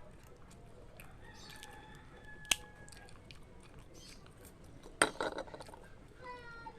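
Someone eating: chewing with scattered small clicks of food and utensils, a sharp click about two and a half seconds in and a louder crackling crunch about five seconds in.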